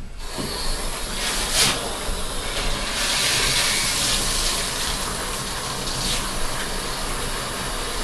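Water spraying steadily from a handheld shower hose, rinsing a wet dog in a bathtub; the spray gets a little louder about three seconds in.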